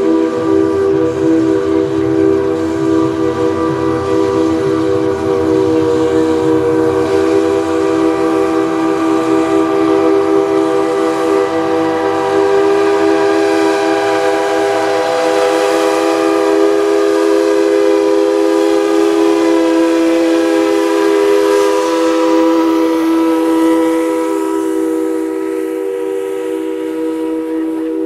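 Steam locomotive's chime whistle blowing one long, unbroken chord of several notes at once, with a low rumble underneath for the first half that then drops away.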